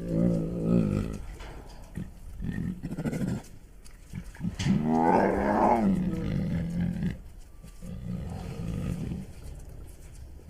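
A bear growling in a series of calls: one at the start, a few short ones, then the longest and loudest about four and a half seconds in, and lower, weaker calls after it.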